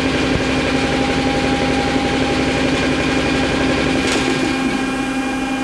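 Mori Seiki SL-403CMC turning center's live milling tool spinning at 1500 rpm, a steady hum of several tones, over the low, fast pulsing of a shop air compressor. About four seconds in, a short hiss of air comes as the compressor shuts off; the pulsing stops and the live tool keeps running alone.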